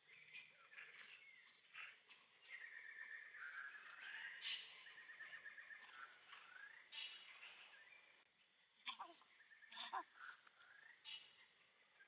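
Faint, high chirping and squeaking animal calls, some in quick trilled runs, with a few sharper calls near the end, over a steady high-pitched drone.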